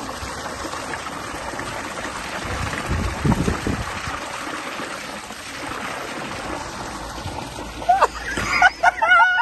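Pool water running and splashing steadily, with a heavier splash about three seconds in.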